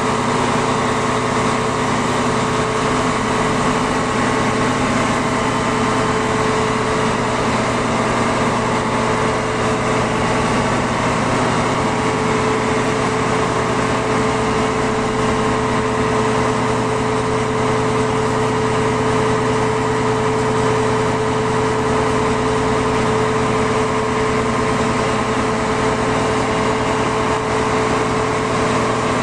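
Claas Lexion combine harvester running steadily, heard from inside its metal grain tank: a constant engine hum with a steady whine over it.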